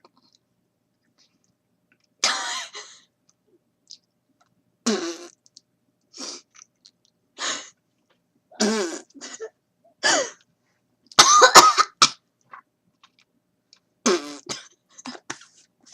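A woman coughing in short, irregular fits a second or two apart, choking on a mouthful of dry ground cinnamon; the loudest, harshest fit comes about eleven seconds in.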